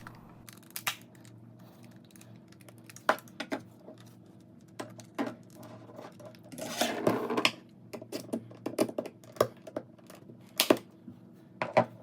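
Plastic housing of a jump starter's battery pack being pried open with a flathead screwdriver: scattered clicks and snaps of the case's clips, a longer scraping stretch about seven seconds in, and a sharp snap near the end.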